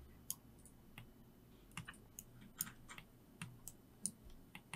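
Faint, irregular clicks of a computer mouse and keyboard, about a dozen short taps spread over a few seconds.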